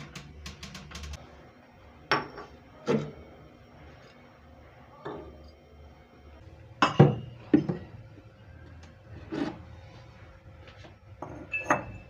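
Glass bottles, jars and a spice grinder set down one at a time on a kitchen counter: a series of separate clinks and knocks, the loudest about seven seconds in.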